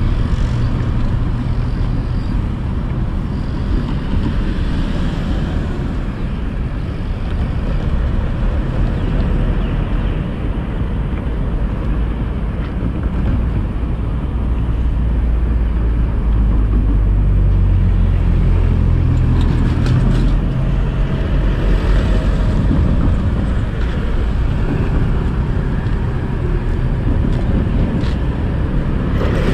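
Steady low rumble of road traffic and construction-site machinery, heaviest about halfway through.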